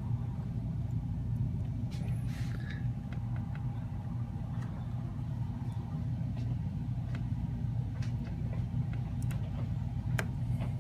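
Steady low background hum with scattered light clicks and taps of small tools and parts as the connector bracket is fitted back inside an iPhone SE.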